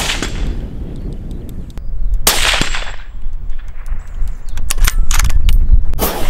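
Several shots from a suppressed Anschütz 1782 bolt-action rifle in .308 Winchester, each a sharp crack with a short echoing tail: one right at the start, the loudest about two seconds in, another near the end.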